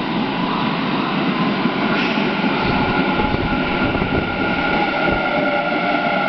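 Electric commuter train running into an underground station platform, its wheels rumbling on the rails. Its traction motors whine, and near the end the pitch falls as the train slows.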